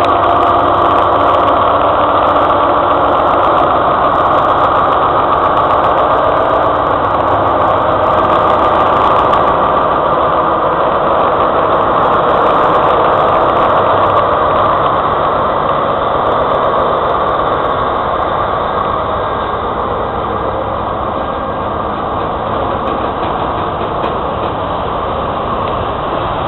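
BB 75000 diesel-electric freight locomotive's engine running under load as it pulls away with a train of tank wagons. It passes close by, and the engine sound eases a little after about 17 seconds, leaving the rumble of the rolling wagons.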